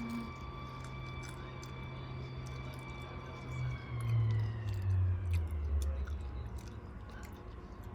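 Close-up chewing and biting of fried food, with small crunchy clicks. Behind it a steady mechanical hum drops in pitch and swells for a couple of seconds about halfway through.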